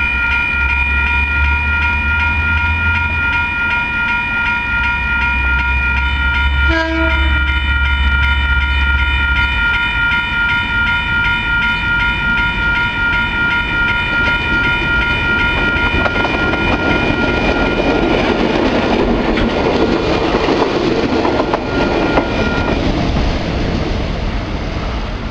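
A diesel locomotive's air horn sounds continuously as DBR and DL class locomotives approach, with a brief break about seven seconds in. Engine and rail noise build up in the second half as the train nears, and the horn stops shortly before the end.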